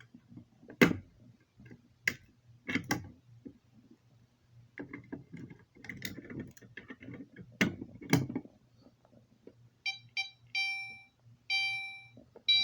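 Sharp clicks and clunks of a fire alarm pull station being key-activated and pulled, over a faint steady hum. About ten seconds in, a fire alarm horn starts sounding in quick repeated electronic beeps, a little over two a second.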